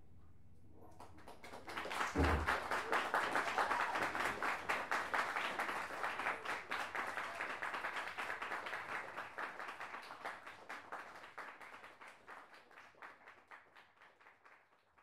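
Audience applauding at the end of a set. The clapping swells about a second and a half in, with a brief low thump as it peaks, then slowly thins out and dies away.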